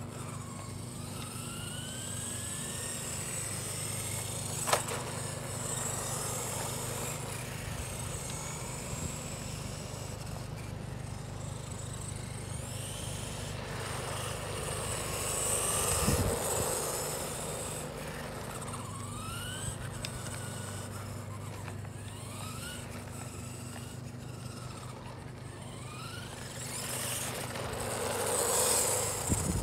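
HBX Vanguard 903 1/12-scale electric RC truck driving on asphalt, its motor whining in short rising bursts as it accelerates. It grows louder as it passes close about halfway through and again near the end. A single sharp click about five seconds in, over a steady low hum.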